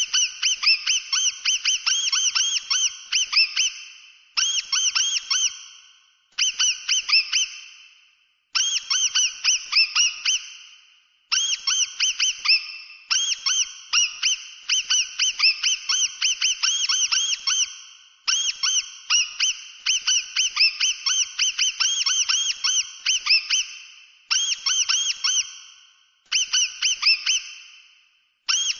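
Mouse squeaking: rapid high-pitched chirps, many per second, each rising and falling in pitch, coming in runs of a second or two with short pauses between.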